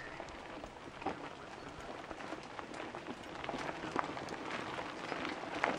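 Mountain bike tyres crunching and crackling over loose gravel and stones as riders roll past one after another, growing louder in the second half.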